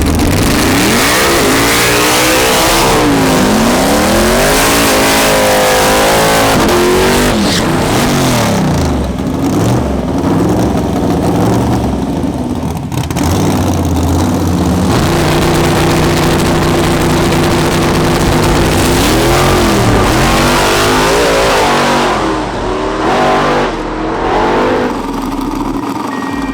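High-powered V8 street car engines revving, the pitch rising and falling several times, holding a steady note for a few seconds past the middle, then revving up and down again near the end.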